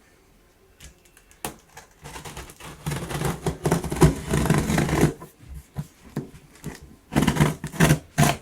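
A cardboard box being opened by hand, scratching and tearing at its packing tape after scissors failed to cut it. There is a click about a second and a half in, then two rough, scraping bursts: a long one from about two seconds in and a shorter one near the end.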